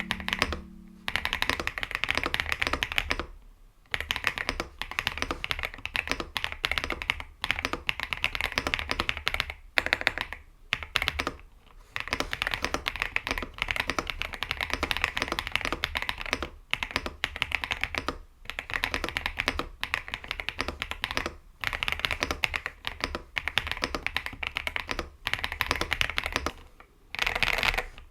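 Typing on an iLoveBee B87 mechanical keyboard with Aster linear switches: a fast, continuous run of keystrokes broken by short pauses every few seconds.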